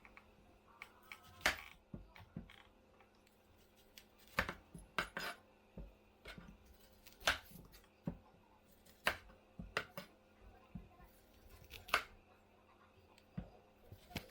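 Irregular light clicks and knocks of small hard objects being handled, roughly one every second.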